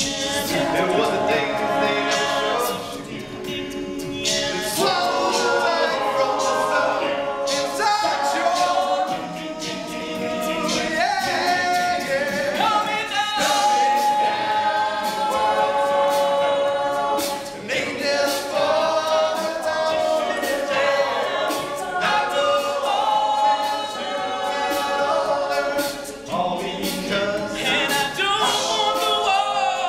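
An all-male a cappella group singing a pop song in close vocal harmony, with sustained chords.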